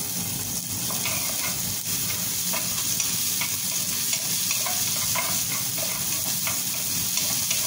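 Chopped onions sizzling steadily in hot oil in a frying pan. A spatula scrapes and stirs through them in repeated strokes, about two a second.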